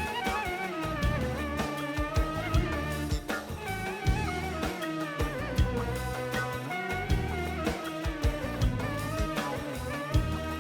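Instrumental music played from a Yamaha A5000 sampler: plucked strings and a drum kit under a lead melody that slides and bends in pitch.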